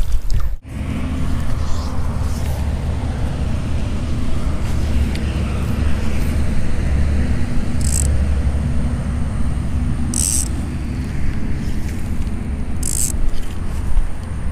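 Steady low outdoor rumble, with three short hisses about eight, ten and thirteen seconds in as fly line is stripped in by hand.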